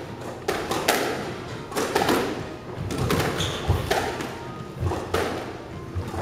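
Squash rally in an enclosed court: sharp racket strikes and the ball's thuds off the walls, irregularly spaced, each with a short echo. There is a brief squeak about three and a half seconds in.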